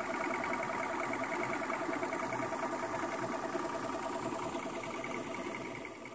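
Boat's outboard motor running steadily with a pitched whine, fading out near the end.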